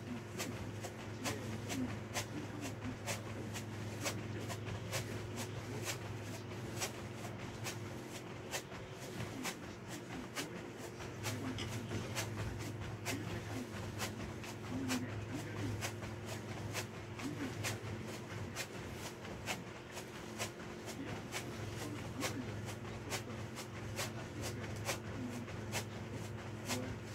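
Sneakered feet landing on a foam exercise mat in a quick, steady rhythm during jumping jacks, with a steady low electrical hum underneath.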